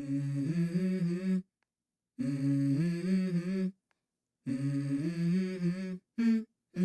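Background music: a wordless hummed vocal line without drums, in three phrases about a second and a half long, separated by short silences, then a brief fourth note near the end.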